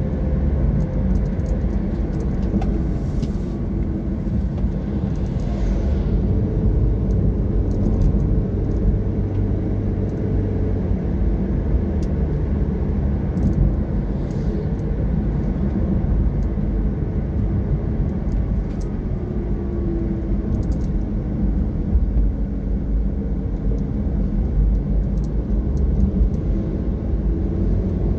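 Car driving at speed on an open highway: a steady low rumble of engine and tyre noise.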